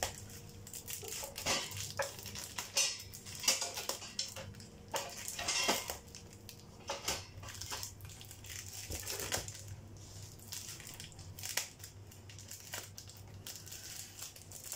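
Irregular scraping, knocking and crunching of a kitchen utensil working in a bowl while mixing crêpe batter ingredients.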